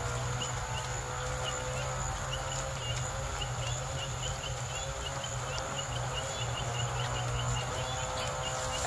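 Steady outdoor nature ambience: a high insect-like drone over a low steady hum, with a run of short quick chirps through the middle.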